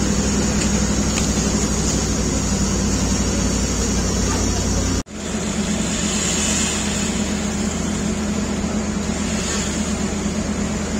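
Steady drone of a fire engine's motor and pump running, with an even hiss over it. It cuts out sharply about five seconds in and comes straight back.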